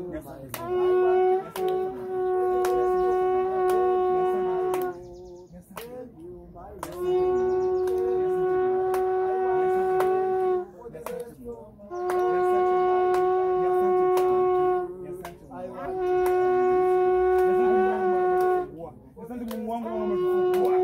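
Shofar (ram's horn) sounded in a series of five long blasts, each held on one steady note for about two to four seconds, with short breaks between them.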